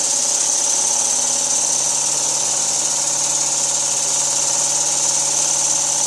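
Small single-cylinder compressed-air engine with a flywheel running steadily at speed off an air blow gun: a continuous mechanical hum under a loud, steady hiss of air.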